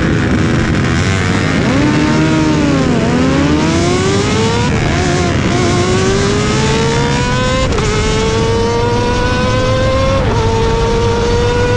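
Kawasaki ZX-25R inline-four, bored up to 300cc, pulling away and accelerating hard through the gears. Its revs dip and rise as it moves off, then climb steadily and drop at each of three upshifts, about 5, 8 and 10 seconds in, over a steady rush of wind and road noise.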